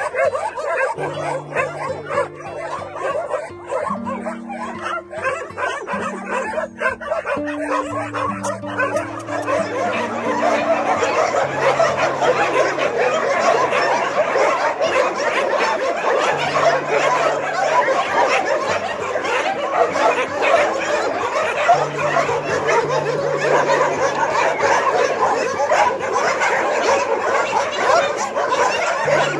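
Many dogs barking and yipping over background music with long held low notes; the barking grows louder and denser about ten seconds in.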